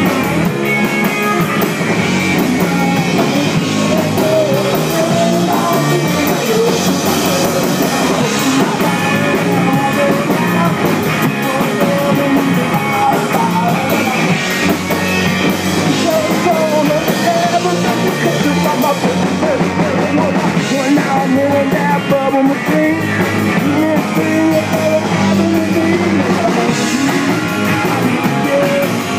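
Live rock band playing loud and continuous: electric guitar and drum kit with a singer.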